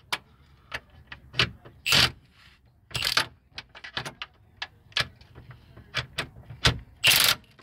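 Hand ratchet on a long socket extension working a subframe bolt: scattered metal clicks and clinks, with three short louder bursts of ratcheting about two, three and seven seconds in.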